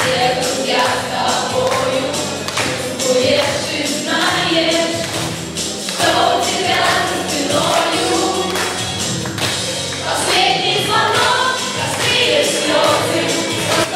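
A group of teenagers singing together as a choir over music with a steady, percussive beat.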